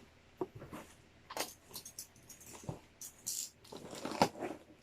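Cardboard box and packaging being handled and opened: scattered taps, scrapes and rustles, with a short crinkling rustle about three seconds in and a sharp knock a second later.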